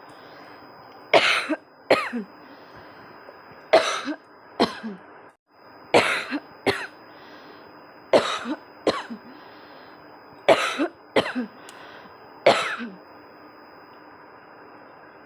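A person coughing on purpose, forced and repeated: six bouts about two seconds apart, each a hard cough followed by one or two shorter ones.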